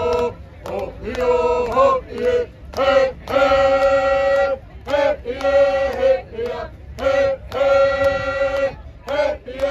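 A group of men and women singing a tribal song together in unison. The song moves in phrases, with long held notes between shorter ones.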